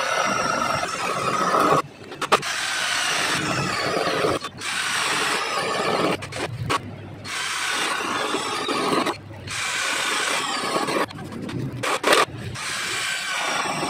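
Mailtank 32V brushed-motor cordless drill boring through a wooden board with a 25 mm spade bit, in second speed. It drills hole after hole, the motor stopping briefly between holes about five or six times.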